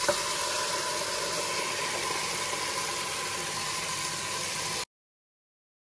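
Soaked urad dal and rajma sizzling steadily in hot spiced oil in a pressure cooker, a small click near the start; the sound cuts off suddenly about five seconds in.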